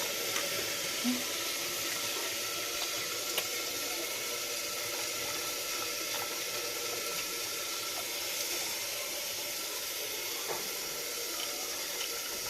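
Onion-tomato masala sizzling steadily in a frying pan on the stove, an even hiss with a few faint crackles.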